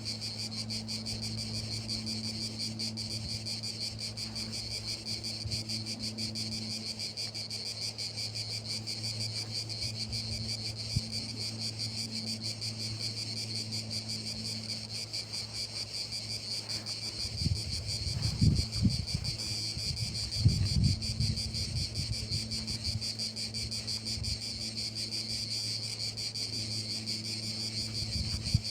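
Crickets trilling steadily in a fast, high, unbroken chorus. A few louder low thumps and rustles come about two-thirds of the way through.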